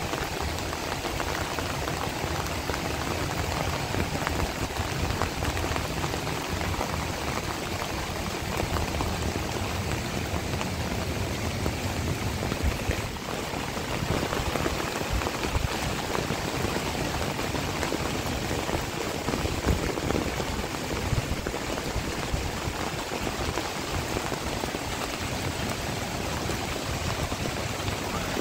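Heavy rain falling steadily, hitting the plastic sheeting of a makeshift shelter and the wet ground around it.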